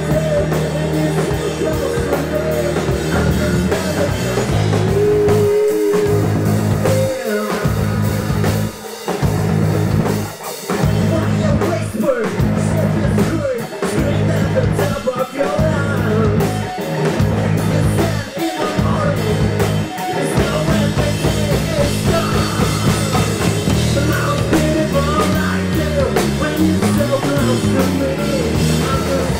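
Live rock band playing: electric guitars, bass guitar and a drum kit, with a sung lead vocal. Through the middle the band cuts out briefly about every second and a half in a stop-start pattern, then plays straight through again.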